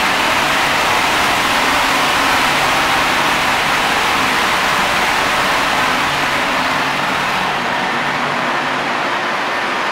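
Loud, steady roar of a container ship's engine-room machinery, its running diesel engines giving a dense, even noise with a faint low hum underneath. The hiss softens slightly about seven seconds in.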